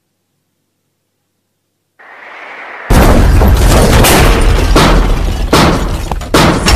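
Sound effect of a steel shipping container being crushed: a rising rush from about two seconds in, then a sudden loud boom about three seconds in, followed by a run of heavy crashing impacts.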